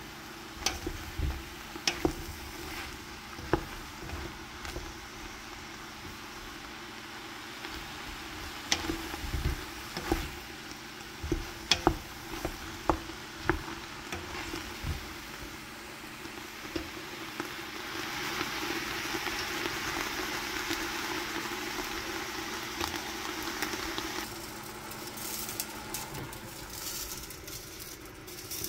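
Sliced mushrooms sizzling as they sauté in a stainless steel stockpot, stirred with a wooden spoon that scrapes and knocks against the pot's sides and bottom every second or so in the first half. The sizzle grows louder for several seconds in the second half.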